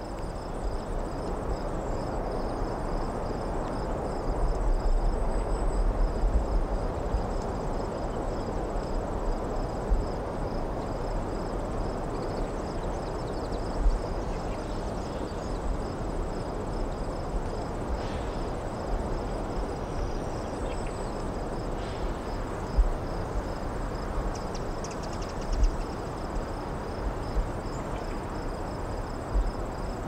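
Crickets chirring in a steady pulsing trill over a broad, even hiss of distant road traffic below, with scattered low thumps.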